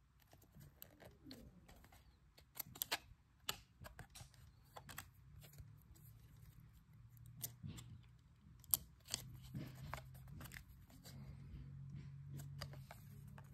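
Stiff chrome-finish baseball cards being flipped and slid against one another in the hands: a scattered run of light clicks and short rustling scrapes, the sharpest click about nine seconds in.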